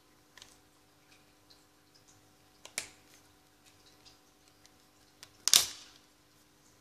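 Plastic clips of a tablet's snap-on cover over its SIM and SD card slots clicking as the cover is pried off by hand. There are faint clicks at first, a sharper click almost three seconds in, and a loud snap about five and a half seconds in as the cover comes free.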